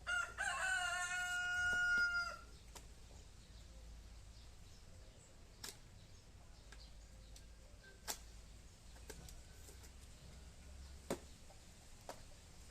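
A rooster crowing once, a call of about two seconds that rises and then holds. After it come a few scattered faint clicks.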